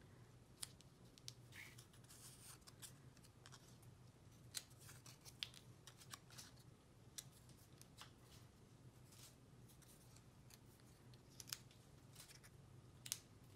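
Near silence with scattered faint clicks and light rustles of small cut paper pieces being picked up and laid onto a card, over a faint steady low hum.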